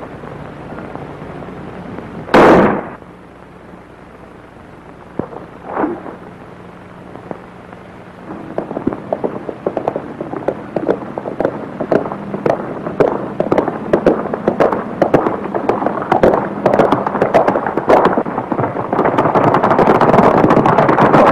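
Horses galloping on hard ground: a rapid, irregular clatter of hoofbeats that starts about eight seconds in and grows louder as the riders come closer. Before that, about two seconds in, there is one loud sharp crack, and a fainter one follows near six seconds.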